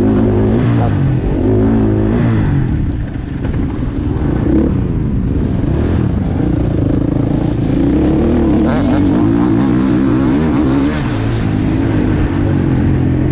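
KTM 450 SX-F motocross bike's single-cylinder four-stroke engine being ridden hard, its pitch rising and falling with the throttle and easing off briefly about three seconds in.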